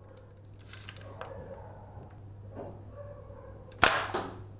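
Plastic toy soft-bullet bow being handled: two sharp plastic snaps about a third of a second apart near the end, over a steady low hum.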